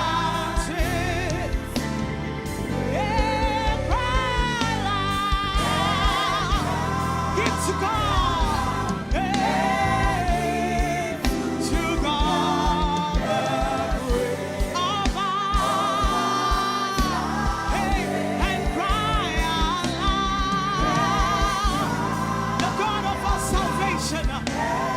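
Gospel worship song: a lead singer holding long notes with vibrato over a band with a steady drum beat and bass.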